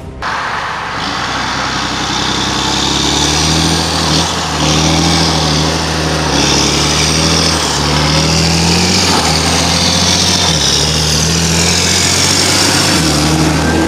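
Diesel engine of harvest machinery running steadily, its pitch shifting a little now and then, under a loud, even rushing noise.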